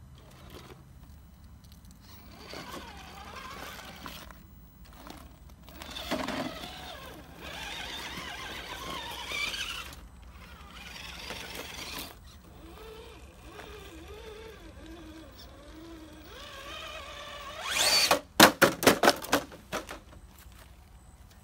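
RC crawler truck's brushed 550 electric motor and geared drivetrain whining, the pitch rising and falling with the throttle as it crawls over concrete rocks. Near the end comes a quick run of loud knocks.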